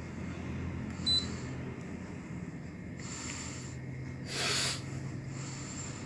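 Sharp AH-A5LEY split air-conditioner indoor unit giving one short, high-pitched beep about a second in, acknowledging a remote-control command, over a steady low hum. About four and a half seconds in there is a brief loud rush of noise.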